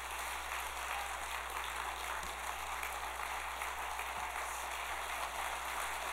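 Audience applauding, a steady, dense sound of many hands clapping.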